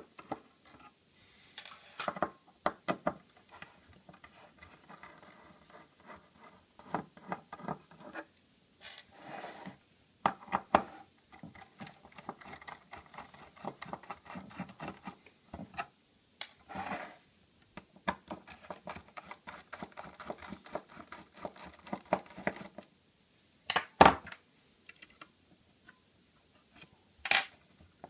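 Screwdriver working screws out of a circuit board in a cast aluminium case, with scratching, ticking and clicks as the board and small parts are handled. There are two sharp knocks near the end.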